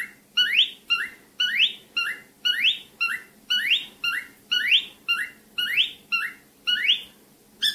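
Cockatiel calling over and over, about once a second: each call a short high chirp followed by a rising whistle. The calls stop near the end.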